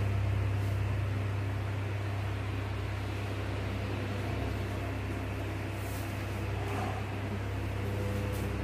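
Steady low hum with a background hiss, with a few faint clicks about six and eight seconds in.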